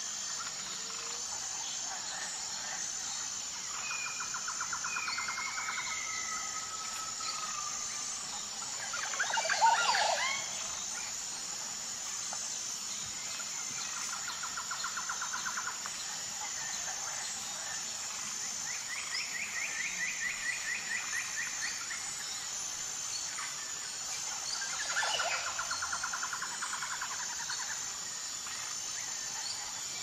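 Forest ambience: a steady high-pitched insect chorus, with birds calling over it in rapid trills and short whistles several times, loudest in a burst of calls about ten seconds in.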